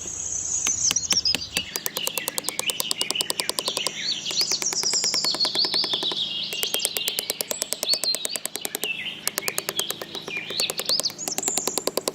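Birds chirping: many quick, twittering calls that rise and fall in pitch, over a rapid, even ticking.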